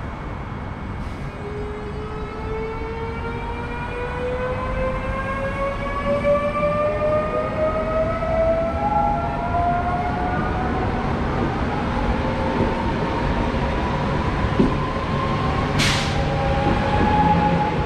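Newag Impuls 2 (EN78) electric multiple unit pulling away and accelerating. Its traction motors whine in several tones that rise steadily in pitch as it gathers speed, over a wheel-on-rail rumble that grows louder. There is a brief hiss near the end.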